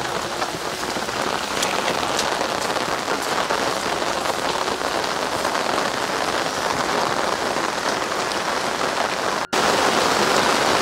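Heavy rain falling steadily on garden trees, plants and lawn: an even, continuous hiss, with a brief dropout near the end.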